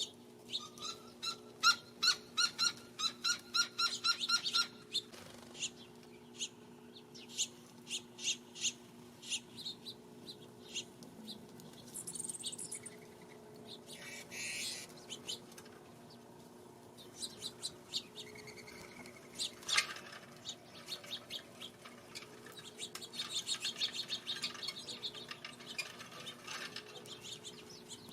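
Small birds chirping and calling at a backyard feeder: many short chirps, with a quick run of repeated notes in the first few seconds. A couple of brief whooshes around the middle, and a faint steady hum underneath.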